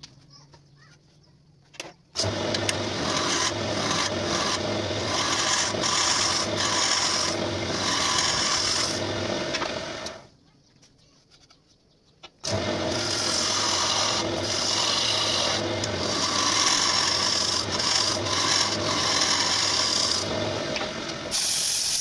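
Wood-turning lathe spinning a wooden bowl blank while a long hooked cutting tool shaves out its inside: steady scraping that starts about two seconds in, stops for about two seconds near the middle, then resumes.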